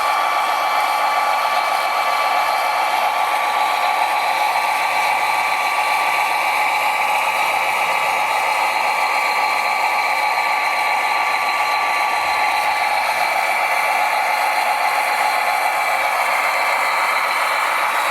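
Electric motors of a radio-controlled construction machine model whirring steadily, a high-pitched whine with no deep engine rumble.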